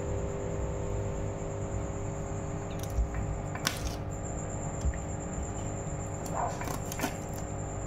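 Wet handling of a fish being cut open and gutted by hand, with a few sharp clicks and faint squelches over a steady background hum.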